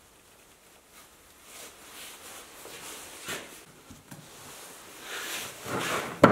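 Quiet handling and rubbing of a steel tractor top link on a workbench, then a sharp metallic click near the end as a grease gun's hose coupler is snapped onto the top link's grease nipple.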